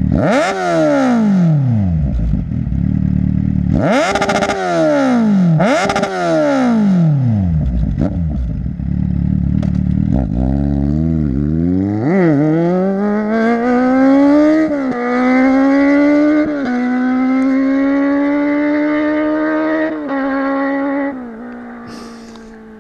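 Kawasaki Z800's inline-four through an SC Project exhaust: three sharp throttle blips from idle, then the bike pulls away, climbing through several gears with a drop in pitch at each shift, before the sound falls and fades away near the end.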